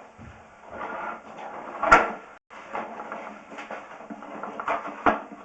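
Sharp knocks and rattling clatter from sewer inspection camera gear being worked into the line: a loud knock about two seconds in and a couple more near the end.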